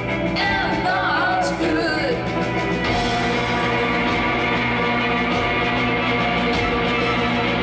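Live rock band playing: electric guitar, violin and drums, with a sliding melodic line in the first two seconds, then fuller, denser playing from about three seconds in.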